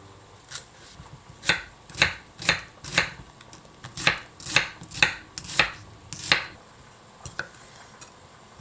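A kitchen knife chopping on a cutting board: about ten sharp, separate cuts at roughly two a second, in two runs with a short pause between them.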